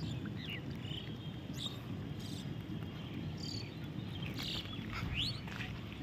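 Bare feet wading and splashing through shallow floodwater, a few soft splashes over a steady low rumble, with short high chirps scattered through.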